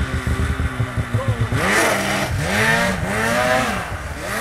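Polaris race snowmobile engine revving hard as the sled launches up a steep hill climb. A low pulsing run gives way, about a second and a half in, to repeated rises and falls in pitch as the throttle is worked.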